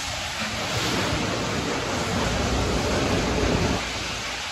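Conveyor car wash tunnel running: a steady rushing hiss of water spray and spinning brushes, easing off slightly near the end.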